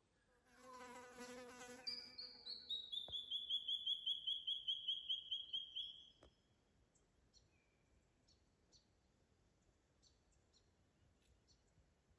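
A fly buzzes for about a second and a half, then a bird gives a loud trill of about five notes a second that falls steadily in pitch over some four seconds. Faint chirps and ticks follow.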